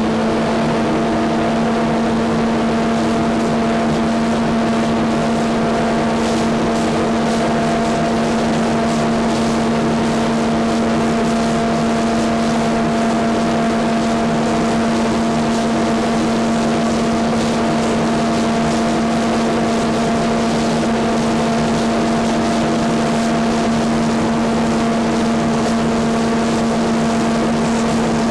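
Industrial sanding machine running steadily, its motor giving an even, unchanging hum over a noisy hiss.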